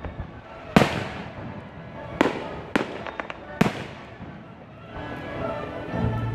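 Aerial firework shells bursting in the sky: four sharp bangs over the first four seconds, with a short flurry of small crackles about three seconds in. Classical music plays steadily underneath.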